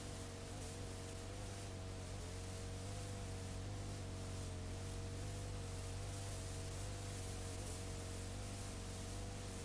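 Playback noise from a blank stretch of old videotape: steady hiss and mains hum, with two faint tones that waver slightly in pitch.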